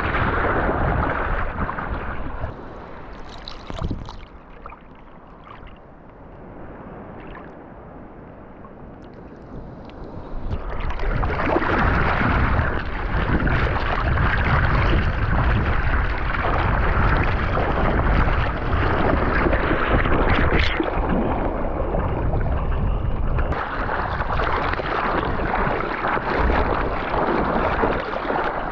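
Sea water rushing and splashing while surfing, with wind buffeting the microphone; the sound drops much quieter for several seconds early on, then returns at full strength.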